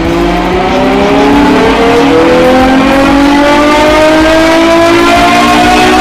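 Ferrari F12 Berlinetta's V12 at full throttle through a Fabspeed stainless steel performance exhaust during a chassis dyno pull, its note climbing steadily as the revs build.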